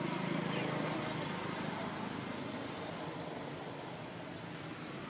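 A motor running steadily with a low hum, under a haze of outdoor background noise.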